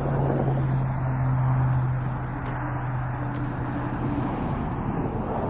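A vehicle running with a steady low engine hum under road rush; the hum fades after about four seconds.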